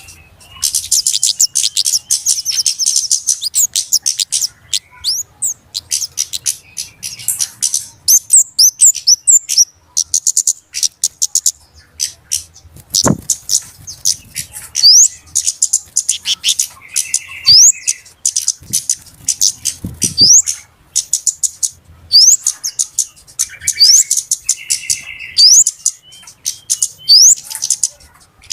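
Flowerpeckers (burung cabe-cabean) calling busily: rapid, very high-pitched clicking chips and short rising squeaks, with a few buzzier lower notes between them. Two soft low thumps come in, about halfway through and again later.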